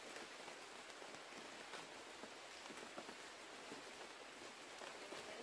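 Faint forest ambience: a steady soft hiss with scattered light ticks and rustles, like drips or leaves.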